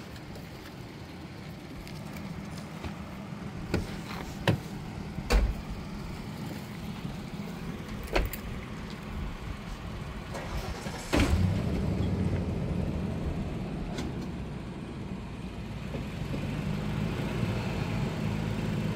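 Vehicle engines idling steadily, with a few sharp knocks and clunks in the first half. The engine note gets suddenly louder a little over halfway through, and swells again near the end.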